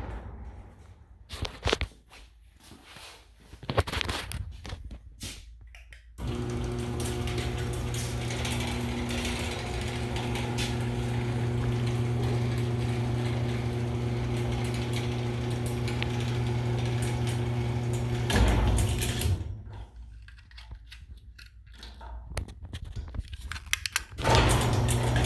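Electric garage door opener's motor running steadily for about twelve seconds as it drives the trolley along the rail, stopping with a clunk, then starting up again near the end. A few scattered knocks come before the motor starts.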